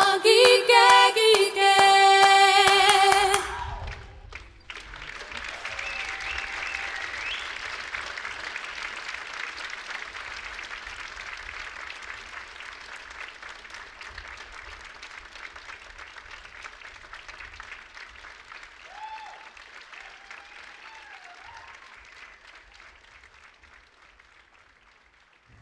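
A sung folk song with accompaniment ends abruptly about three seconds in. Audience applause follows and slowly fades away.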